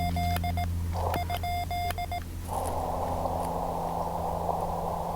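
Morse code (CW) on a ham radio: a single steady tone keyed on and off in short and long elements, stopping a little over two seconds in. Then the receiver's static comes up as a steady hiss.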